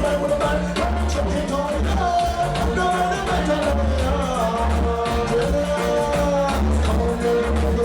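Live reggae band playing, with a heavy, pulsing bass line under a steady beat and a wavering lead melody.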